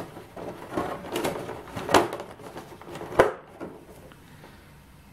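A thin black plastic insert tray rustling and crackling as a plastic miniature is pulled out of its slot and handled, with sharp clicks about two and three seconds in.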